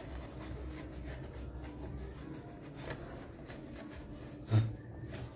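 Cloth rubbing over the glass of a wooden picture frame in quick short wiping strokes, with a single soft thump about four and a half seconds in.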